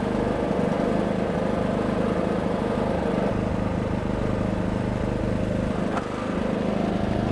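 Small gasoline engine running steadily with an even, unchanging hum.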